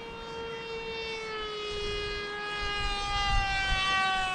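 Electric motor and propeller of an RC flying wing whining in flight, a steady tone that slowly falls in pitch and grows louder toward the end.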